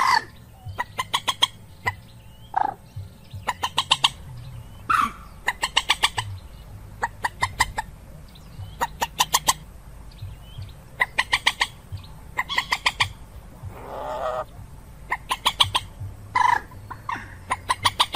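Common moorhen calling: quick runs of sharp clicking notes, each run about half a second long, with a few single bending squawks between them and one harsher, grating call about fourteen seconds in. A low hum runs underneath.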